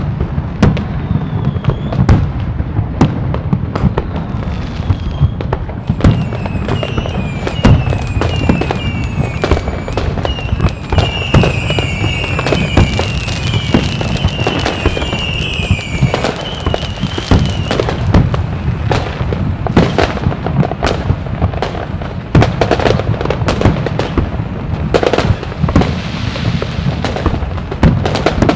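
Fireworks going off in a constant barrage of sharp bangs and crackles, with a run of short, high whistles that fall in pitch through the middle.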